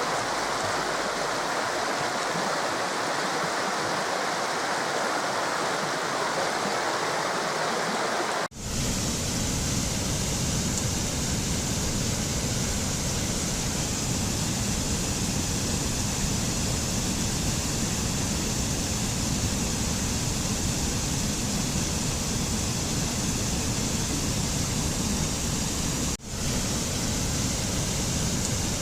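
Waterfall: a steady rush of falling water. It cuts out briefly twice, about 8 seconds in and near the end, and after the first break the rush is deeper, with a heavy low rumble.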